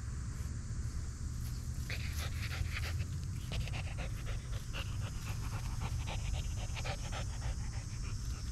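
A dog panting close by in quick, even breaths, starting about two seconds in and fading near the end.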